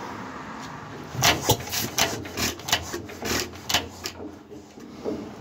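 A quick run of short, sharp rasping scrapes, about a dozen over three seconds, from a hand working the linkage on the side of a 1936 Stover CT-2 engine while getting it ready to start.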